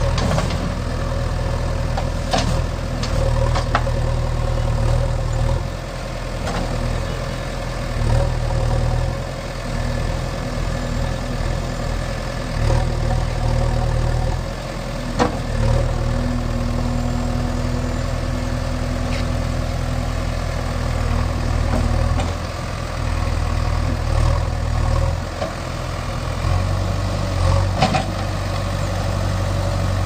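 JCB 3DX Eco Expert backhoe loader's four-cylinder diesel engine running as its front loader bucket pushes soil, the low engine note swelling and easing every few seconds with the load. A few short sharp knocks come through, the loudest about a quarter of the way in.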